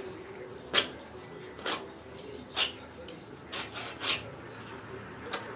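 Palette knife scraping oil paint onto a stretched canvas in short strokes, about six quick scrapes roughly a second apart.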